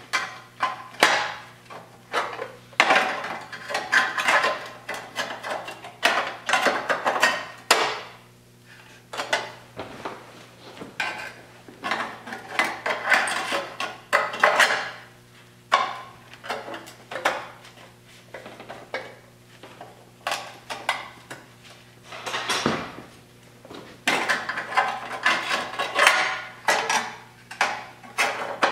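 A steel patch plate being fitted into a Triumph TR6 chassis rail by hand: repeated metal-on-metal clanks, taps and scrapes in irregular clusters as it is knocked and worked into place.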